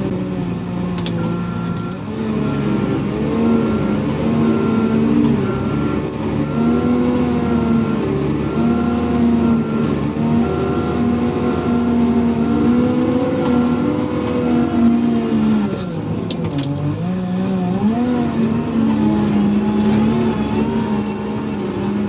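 Wheel loader's diesel engine working under changing load, heard from inside the cab, with the engine pitch sagging and recovering about three quarters of the way in. A backup alarm beeps steadily while the loader reverses and stops at about the same moment as the engine sag.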